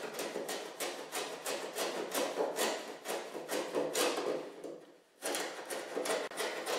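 Hand-tool strokes on the edge of a cedar-strip canoe hull: quick repeated scraping cuts, about three a second, with a short pause about five seconds in. The wood is being cut back at the stem so the outer stem pieces can sit flush with the strips.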